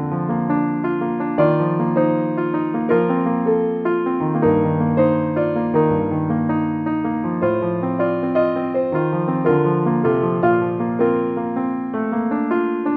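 Background piano music: a slow piece of sustained, overlapping notes and chords, changing roughly every second.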